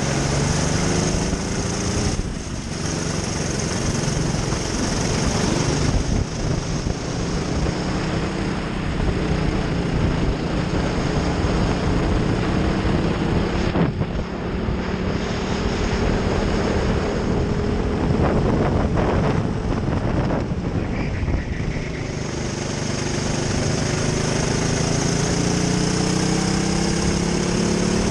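Racing kart engine running hard through a lap, its pitch rising and falling with speed: it climbs at the start, drops briefly about two seconds in, rises slowly through a long middle stretch, dips again about three-quarters of the way through, then climbs toward the end.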